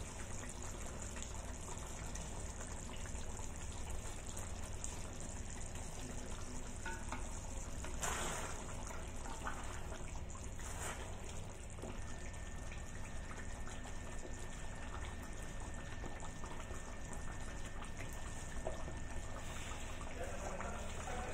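Chili sambal sauce simmering and sizzling in a stainless steel wok, a steady bubbling hiss. A wooden spatula stirs through it, with brief scrapes about eight and eleven seconds in.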